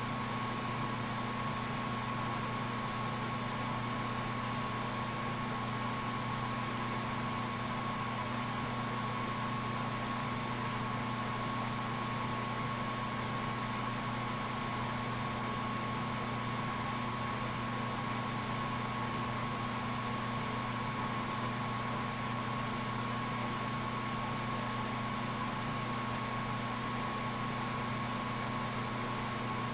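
Lampworking glass torch burning with a steady hiss, under a constant low hum and a thin high whine.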